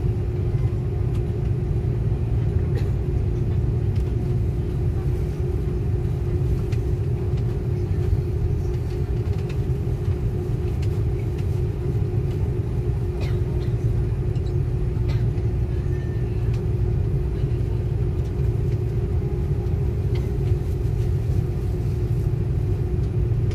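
Airliner cabin noise while the plane taxis: a steady low rumble with a constant hum above it, heard from inside the cabin.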